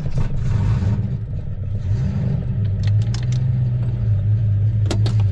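Freshly swapped-in Ford 5.0 V8 running just after its first start. It runs unevenly at first, then settles into a steadier, slightly higher note about three and a half seconds in, with a couple of sharp clicks near the end.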